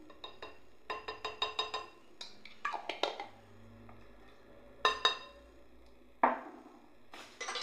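A spoon knocking against a glass mixing bowl while minced turkey is stirred: a quick run of about six light ringing clinks, then a few scattered single knocks.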